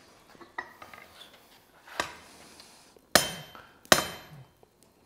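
Blacksmith's hammer striking a red-hot steel bar on an anvil: two blows about three and four seconds in, each with a short ring. Before them come a few light knocks and a sharp clink.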